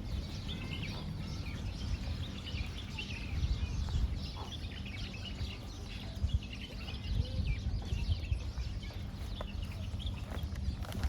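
Many birds chirping and twittering in quick, overlapping calls, over a low rumble.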